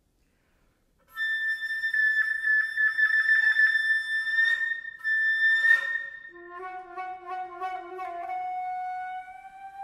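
Solo concert flute playing. After a second of silence comes a long held high note with a pulsing flutter, then two puffs of breath noise, then a lower note that slides slowly upward, with a second, lower tone sounding beneath it for about two seconds.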